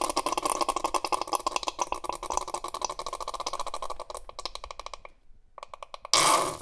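A rapid clicking rattle that slows and fades out over about five seconds, followed by a short loud burst of noise near the end.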